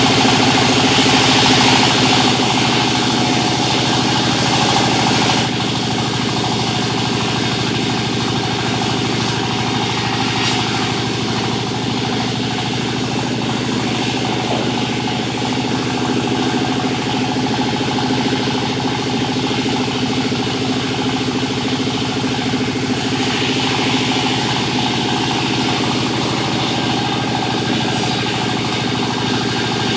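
Sawmill machinery running steadily with a constant engine hum while sawing jabon logs. It is louder and hissier for about the first five seconds and turns brighter again for a few seconds about three-quarters through.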